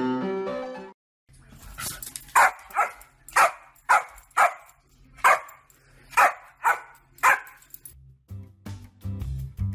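A dog barking about nine times in short sharp barks at irregular spacing. Piano music plays at the start, and other music with a beat comes in near the end.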